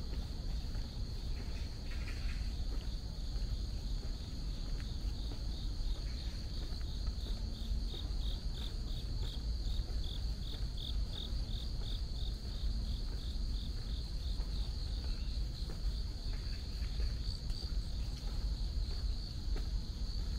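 Insects trilling steadily in dense woodland. About a third of the way in, one insect chirps in a fast, even series of about three pulses a second for several seconds, all over a steady low rumble.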